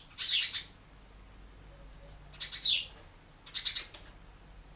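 House sparrows chirping: three short bursts of quick, high chirps.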